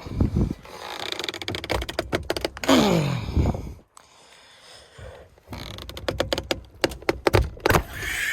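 Irregular clicking and rattling of a screwdriver and hand tools against the steering wheel's plastic and metal airbag clips while the airbag is being pried free, with a falling squeak a few seconds in.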